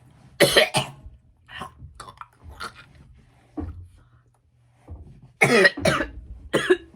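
A person coughing in short fits with a mouthful of earthworm jerky: two strong coughs about half a second in, smaller coughs and throat-clearing sounds after, and a louder cluster of coughs near the end.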